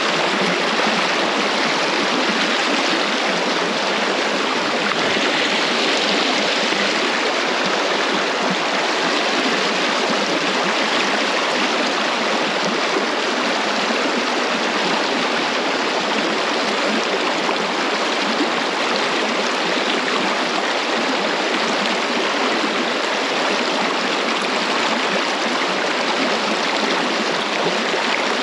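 River water flowing and breaking over rocks in a shallow run, a steady even rush with no change throughout.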